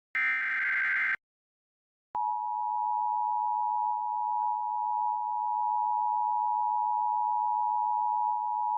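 Emergency Alert System broadcast: the last SAME header data burst, a buzzy digital squawk about a second long, then after a second of silence the steady two-tone EAS attention signal starts and holds, announcing a tornado warning.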